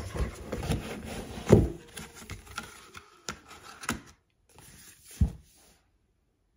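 Cardboard perfume boxes being handled: rubbing and scraping of card against card with many small clicks, and a few dull knocks, the loudest about a second and a half in and again about five seconds in.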